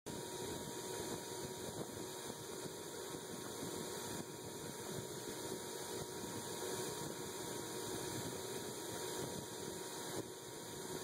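Steady hum and hiss of a running KMG-style belt grinder, with no blade on the belt.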